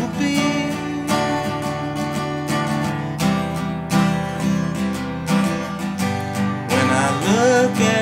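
Acoustic guitar strummed in a steady rhythm, an instrumental passage between sung lines, with a voice gliding in near the end.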